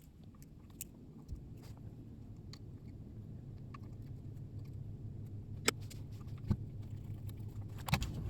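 Scattered small clicks and taps of a Switchcraft low-profile XLR connector's parts being handled and pushed together, over a low hum that slowly grows louder.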